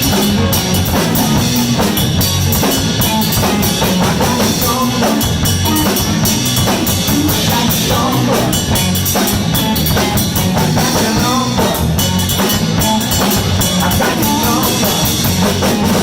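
Live blues band playing an instrumental passage: drum kit keeping a steady beat under bass guitar and a guitar playing lead lines.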